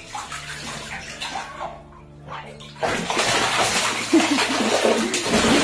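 A goose splashing and beating its wings in water in a small inflatable pool. About three seconds in the splashing turns suddenly loud and heavy as the goose rolls over in the water.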